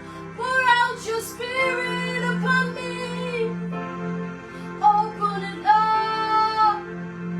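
Slow gospel worship music: a woman's voice sings sustained lines over held electronic keyboard chords.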